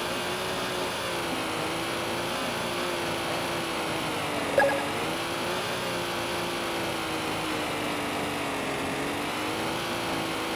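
Electric RC car's motor whine, a steady pitched drone that dips and rises slowly with the throttle, over rough gravel road noise. A short blip sounds about halfway through.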